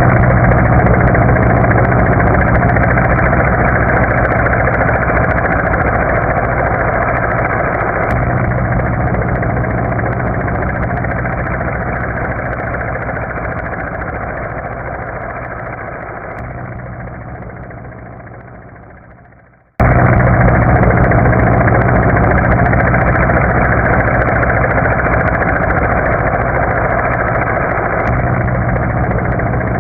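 Military helicopter flying away, its rotor beat and turbine fading steadily for about twenty seconds until gone. The sound then starts again abruptly at full loudness and begins to fade once more.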